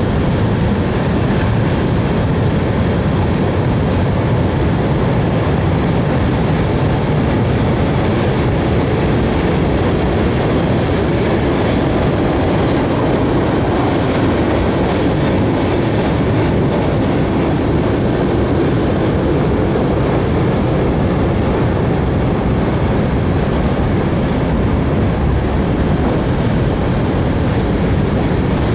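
Freight train of boxcars, tank cars and covered hoppers rolling steadily across a steel trestle: a continuous, even noise of wheels on rail.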